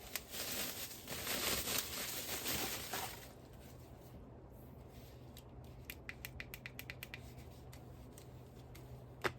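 Packaging and plastic parts being handled: rustling and scraping for about three seconds, then a run of quick light plastic clicks, several a second, as the handheld vacuum's parts are handled.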